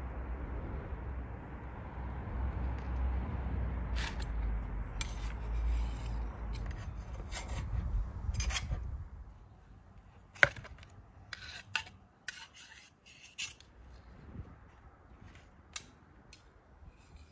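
Knife and fork scraping grilled meat off long metal skewers onto a wooden board: rubbing and scraping, then sharp metal clicks and clinks about once or twice a second through the second half. A low rumble runs under the first half and stops about nine seconds in.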